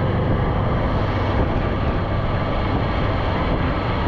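Golf cart driving along a paved road: a steady low drone of the cart running with road and air noise and no letup.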